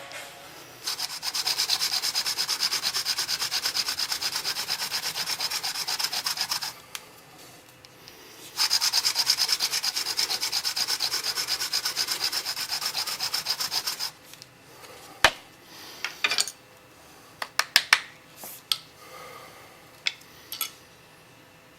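Hand-drill friction fire: a cattail-stalk drill shaft with a lime tip is spun back and forth between the palms against a lime fireboard, giving a rhythmic grinding rub in two bouts of about six seconds with a pause between. The friction is grinding out hot dust to make an ember. About a second after the second bout stops, a scatter of sharp clicks and taps follows.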